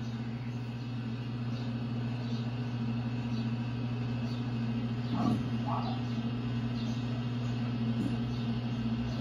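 Steady low electrical hum of a mains-powered appliance, with a faint voice heard briefly about five seconds in.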